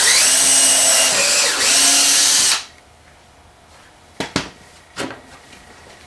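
Power drill boring into pine, the motor whining steadily for about two and a half seconds with a brief dip in the middle, then stopping. A few sharp knocks follow about a second and a half later.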